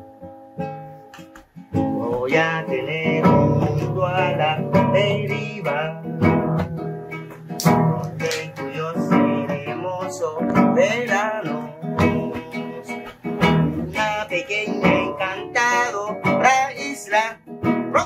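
Nylon-string classical guitar being strummed and picked, with a man singing along, starting about two seconds in.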